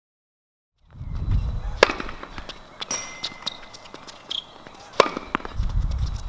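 Silent for about the first second, then sharp racket-on-ball strikes: one about two seconds in and an overhead smash hit about five seconds in, over a low rumble.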